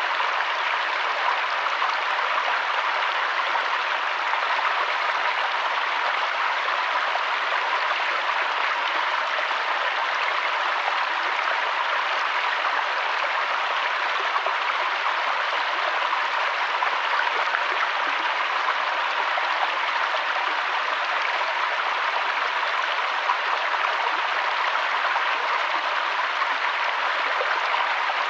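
River water flowing: a steady, unbroken rush of a stream over rocks.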